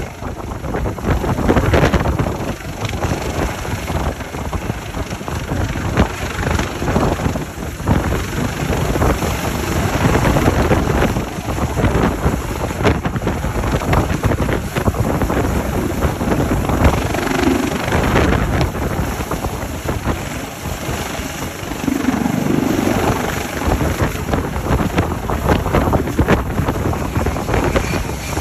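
Helicopter's rotor and turbine engines as it hovers in and sets down on a helideck, mixed with heavy wind buffeting the microphone.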